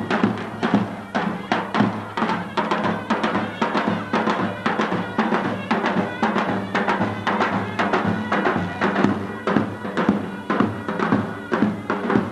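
Turkish village folk music on davul drums, struck in a fast, steady beat.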